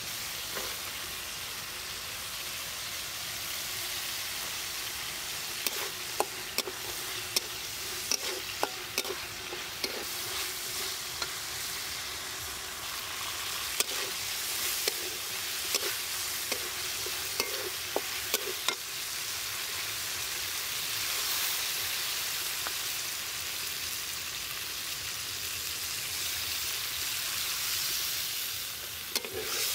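Spice paste sizzling in hot oil in a metal karahi while a metal spatula stirs it, with sharp scrapes and clicks of the spatula against the pan, most of them between about 6 and 19 seconds in.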